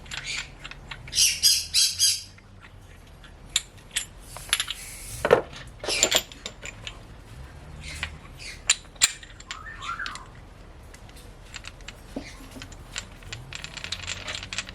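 Aluminium bearing-cone driver being struck to tap a wheel bearing cone into its hub: a run of sharp metallic taps and clinks, loudest in a cluster about a second in and again around five to six seconds in.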